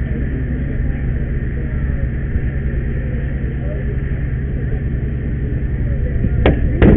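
Hydraulic rescue tool forcing a car's passenger door open: the engine of its power unit drones steadily, and two sharp metal cracks come near the end as the door gives.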